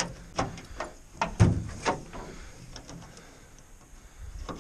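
Metal clinks and knocks from a pickup's tailgate support cable and its latch hardware being handled and unhooked from the bed. There are several sharp knocks in the first two seconds, the loudest about a second and a half in, then a few faint ticks.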